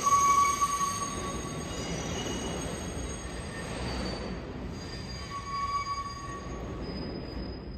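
6 subway train's steel wheels squealing as it rounds the tight City Hall loop curve, with a rumble of the cars on the rails. Several high squeal tones come and go, loudest at the start and fading as the train draws away.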